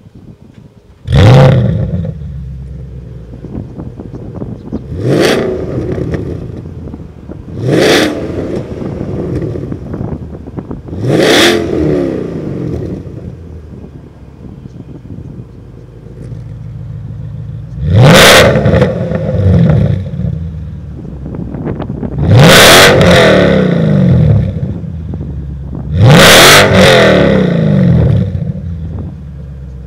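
Porsche Panamera 4S with a Fi valvetronic catless exhaust starting up with a sudden loud flare about a second in, then idling and being revved in short stabs. Three revs come with the exhaust valves closed, then four longer, fuller revs with the valves open.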